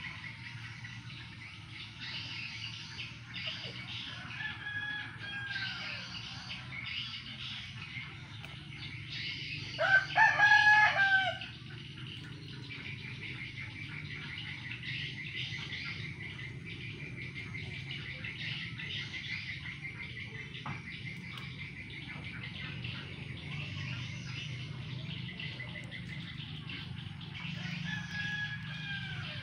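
A rooster crows loudly once about ten seconds in. Two fainter crows from farther off come around five seconds in and near the end, over a steady high chirping in the background.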